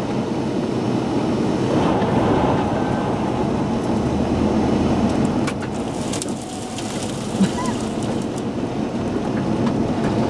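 Steady road and engine noise heard inside a car driving on a rain-wet road, with a few sharp ticks on the glass a little past the middle.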